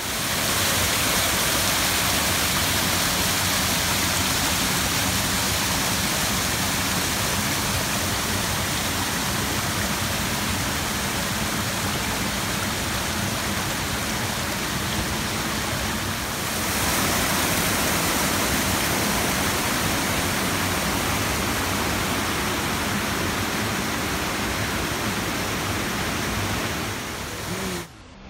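Waterfall pouring steadily, a dense rushing of falling water that drops away suddenly just before the end.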